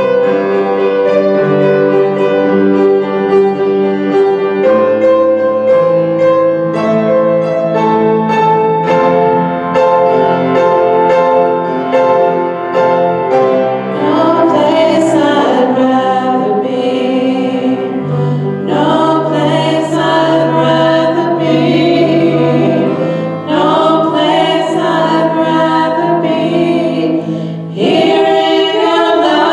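A small worship team playing and singing: grand piano with women's voices. The music holds steady notes at first, and the singing comes in more strongly about halfway through.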